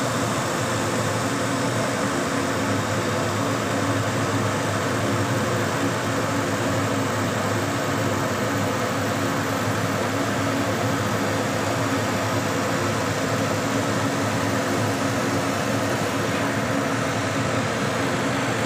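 Laser cutting machine running with a steady hum and hiss, its head travelling over an acrylic number plate.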